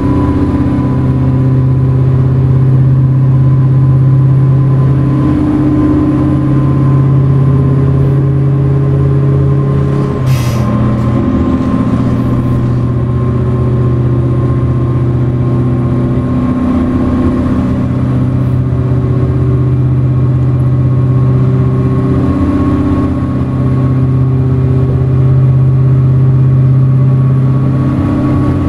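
Semi truck's CAT 3408 V8 diesel running steadily under way, a loud, even drone. It briefly dips about ten seconds in, with a short hiss.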